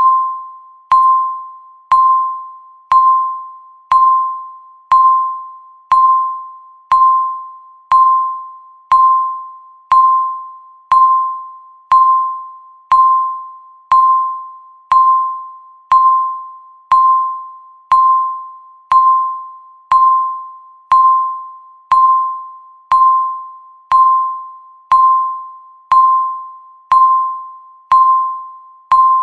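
Countdown timer's tick sound, once a second: each tick is a sharp click with a single-pitched ding that fades away before the next.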